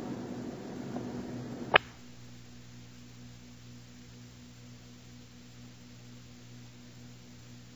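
End of a cassette tape recording: hiss and room noise, then one sharp click about two seconds in, after which they drop out and leave only a steady low mains hum.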